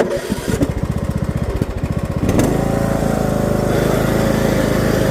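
Husqvarna riding lawn mower's engine cranking on its electric starter with a quick, even chug, catching about two and a half seconds in and then running steadily. This is the restart after the hydrostatic transmission has been bled of air.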